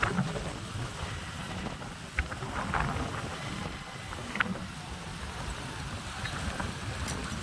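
Wind buffeting the microphone over the low rumble of motorcycles on the move, with a few brief knocks.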